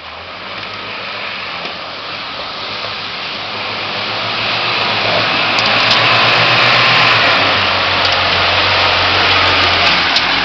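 UAZ-31512 off-road vehicle's engine running under load, growing steadily louder through the first six seconds and then holding loud as the vehicle pushes its way through.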